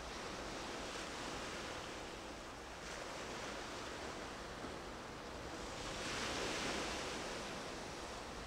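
Steady wash of sea waves with wind noise, swelling once about six seconds in.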